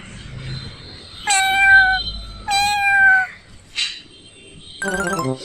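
A cat meowing twice, two long calls a moment apart, each sliding slightly down in pitch. Near the end comes a short buzzy, stuttering sound that drops in pitch.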